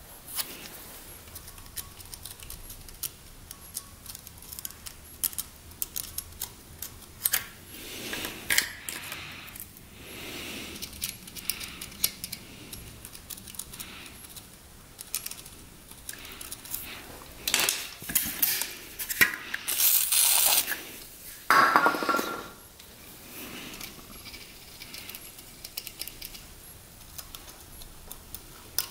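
Flat-blade screwdriver scraping and clicking against the breaker points of a Briggs & Stratton engine, working off white gunk: scattered light metal clicks with a few short scrapes, the loudest ones bunched together about two-thirds of the way through.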